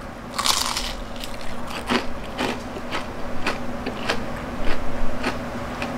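A bite into the crispy fried breading of a chicken thigh, with one loud crunch about half a second in, then chewing with sharp crisp crunches about twice a second.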